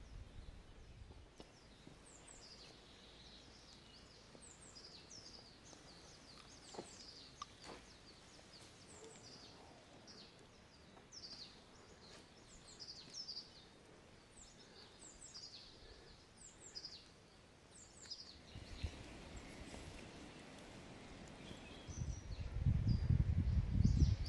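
Forest songbirds singing: many short, high, down-slurred chirps repeated in quick series. Near the end a loud low rumble comes in over them.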